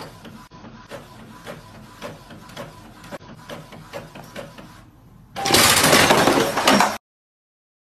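Epson inkjet printer running, its mechanism clicking about twice a second over a faint steady tone. About five and a half seconds in, a loud rough burst of noise lasts about a second and a half, then all sound cuts off suddenly.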